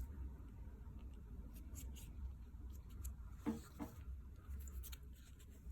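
Faint handling noises as a woven sport loop band is fitted onto an Apple Watch: light clicks and scratchy rubbing, over a low steady hum.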